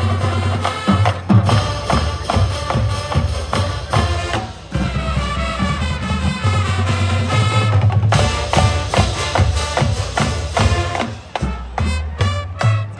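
High school marching band playing: wind instruments carrying the tune over a driving drumline with steady bass drum hits.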